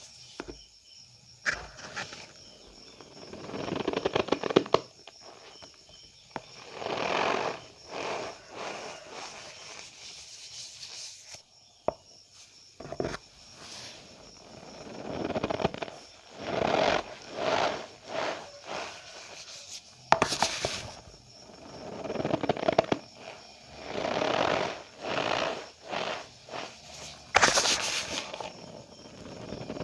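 Cornstarch powder squeezed and pressed by hand, giving a squeaky crunch in repeated strokes about a second long, in groups with short pauses and a few sharp clicks between.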